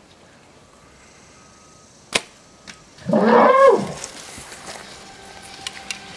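A Mathews compound bow is shot with one sharp snap. About a second later an elephant gives a loud squeal that rises and falls in pitch over about a second, the kind of squeal bowhunters listen for as a sign of an arrow in a vital organ.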